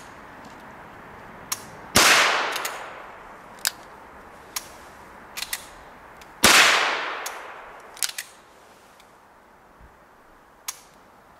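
Two shots from a stainless Ruger Single Six revolver firing .22 LR standard-velocity rounds, about four and a half seconds apart, each trailing off over a second or more. Light clicks come between the shots as the single-action hammer is cocked.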